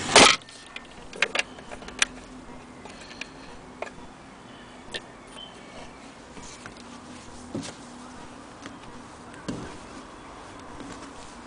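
Handling noises: a loud knock right at the start, a few sharp clicks about a second and two seconds in, then scattered faint clicks and light knocks over a faint steady hum.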